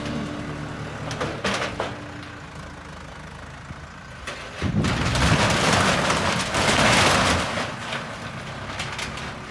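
Diesel tractor running during barn demolition, with clattering and a loud noisy surge from about halfway in to near the end.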